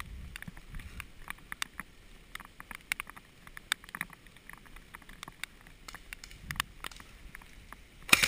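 Faint scattered clicks and snaps at irregular times, then right at the end a rapid burst of automatic airsoft gunfire begins.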